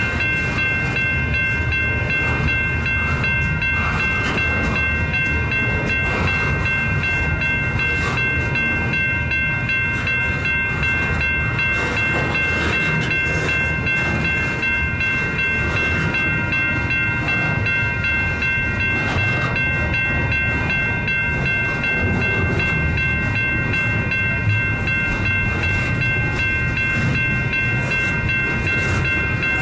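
Intermodal freight train of container well cars rolling past at street level: a steady rumble of wheels with scattered clicks over the rail joints. A steady high-pitched ringing is held throughout.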